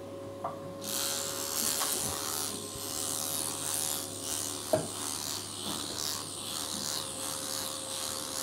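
Liposuction cannula working under the skin of the upper arm: a rough, uneven suction hiss with rubbing strokes that starts about a second in, over a steady low hum from the equipment.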